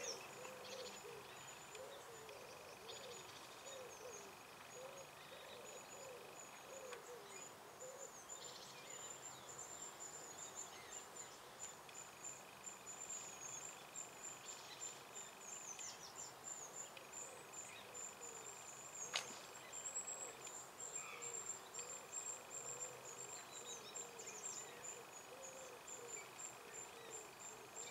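Faint ambience of distant bird calls and a high, thin, rapidly pulsing trill, with one soft click about two-thirds of the way in.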